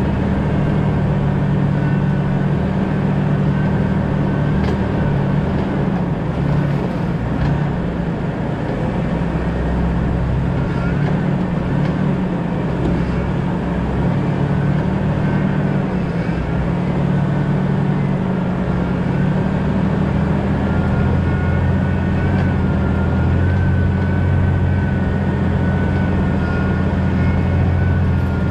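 2000 Jeep Cherokee XJ driving, with steady engine and road noise and a thin wavering whine above it. The low drone deepens and strengthens about two-thirds of the way through.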